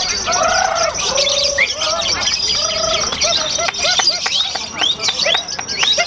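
Lovebirds chattering and singing: a rapid, unbroken run of high chirps, short falling whistles and buzzy notes, growing busier after about three seconds.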